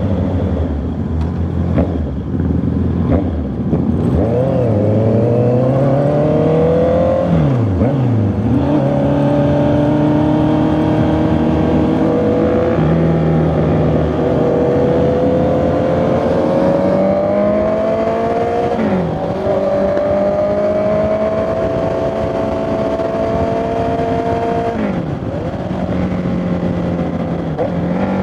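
Honda CB650R's inline-four engine and exhaust under way, climbing steadily in pitch while accelerating, with quick drops and recoveries at gear changes about four, eight, nineteen and twenty-five seconds in.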